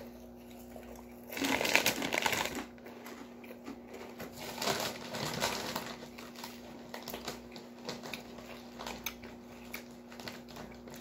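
Crunchy Takis Fuego wavy corn chips being chewed. A louder burst of crunching and crackling comes between about one and a half and two and a half seconds in, followed by quieter, irregular crunching clicks.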